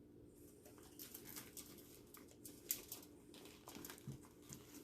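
Faint eating and handling noises: a string of small, scattered clicks and crackles over a low steady hum.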